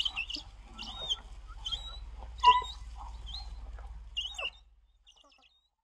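African wild dog pack twittering during a kill: a run of short, high-pitched chirping squeaks that bend in pitch, with one louder call about halfway through. The calls stop a little after four seconds in.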